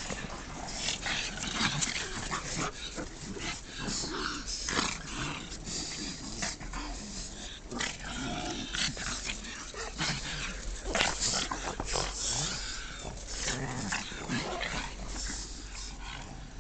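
Several pugs play-fighting, with short, irregular play growls and other dog noises coming one after another.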